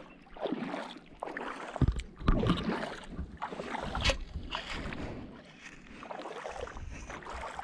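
Shallow seawater sloshing and splashing irregularly, as of someone wading, with a few heavier splashes about two seconds in and a sharp tap about four seconds in.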